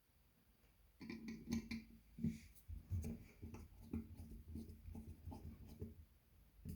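Hands handling small hardware, irregular light clicks, taps and rustles starting about a second in.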